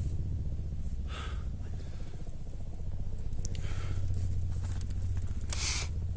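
Unexplained low droning hum from the sky, steady and with a fast pulsing texture. Short hissing noises cut in three times, the loudest near the end.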